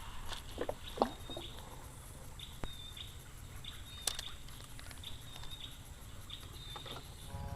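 A bird calling over and over in short high chirps, about one or two a second, over a steady low rumble. A few sharp clicks cut in, the loudest about a second in.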